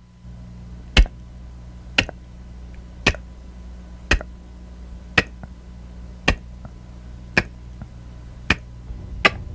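A short, sharp click repeated about once a second, nine times in all, over a steady low hum.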